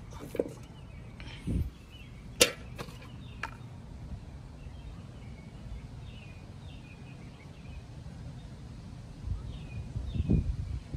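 Handling noises while planting succulent leaf cuttings in potting mix: a few sharp clicks and taps, the loudest about two seconds in, and a couple of soft thumps, one near the start and one near the end.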